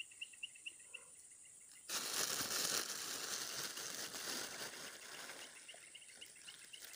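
A sudden loud rustling noise about two seconds in that fades away over about three seconds, over a rapid run of chirps, about five a second, and a steady high hum from the surrounding grassland; the chirping returns near the end.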